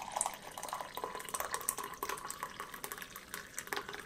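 Freshly brewed coffee pouring from a carafe in a steady stream into a ceramic mug, splashing and gurgling as the mug fills.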